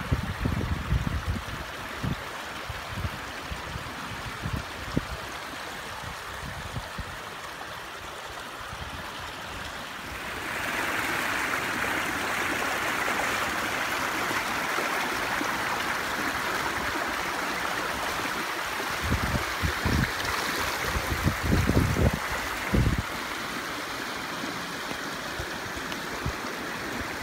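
Fast floodwater of the swollen River Ribble rushing past, a steady hiss that grows louder about ten seconds in. Now and then low gusts of wind buffet the microphone.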